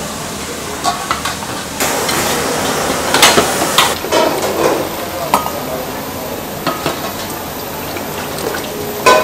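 Kitchen clatter: stainless steel bowls and a metal ladle clinking and knocking, a scattering of sharp clinks with a louder knock near the end, over a steady hiss.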